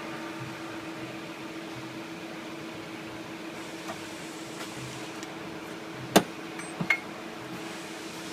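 Steady mechanical hum with one constant tone, broken by a sharp click about six seconds in and two fainter clicks just after.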